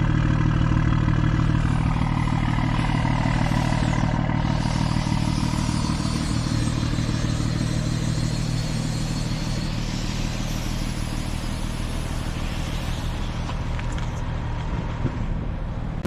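BMW 340i's turbocharged inline-six idling steadily through an AWE track exhaust with its valve open, so one side runs as a near straight pipe; a deep, even exhaust note.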